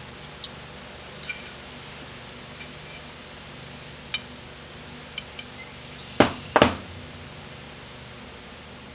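Small metal parts and hand tools clinking and tapping on a workbench while an automatic transmission valve body is taken apart, with two louder knocks about six seconds in. A steady fan hum runs underneath.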